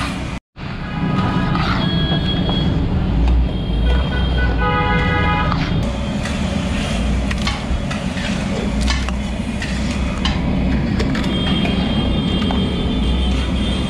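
Busy street ambience with a steady low traffic rumble, and metal ladle scraping and knocking against a large aluminium pot. The sound drops out for an instant about half a second in.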